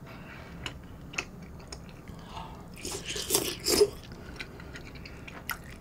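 Close-up eating sounds: a person chewing, with small wet mouth clicks, then a louder bite and chew about three seconds in.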